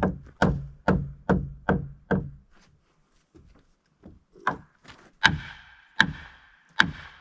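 Heavy blows on a timber-framed wall, knocking it along into position: six quick dull thuds in the first two seconds, then after a pause four sharper, ringing strikes.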